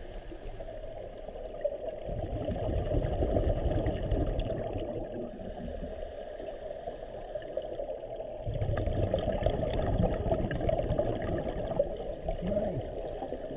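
Muffled underwater sound heard through a camera housing: a steady water hiss with two long, low rumbling surges, about two seconds in and again about eight and a half seconds in, from a scuba diver's exhaled regulator bubbles.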